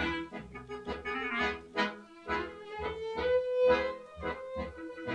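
Klezmer quartet playing: clarinet and violin on the melody over accordion and plucked double bass, with a loud held note a little after three seconds.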